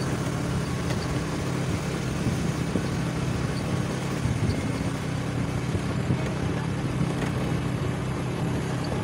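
A motor vehicle's engine running steadily, a low even hum with road and wind noise over it and no change in speed.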